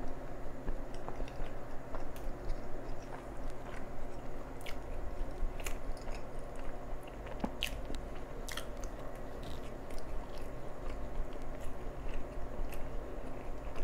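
Close-miked chewing of a chicken sandwich on a soft bun, with wet mouth clicks and smacks scattered throughout, over a low steady hum.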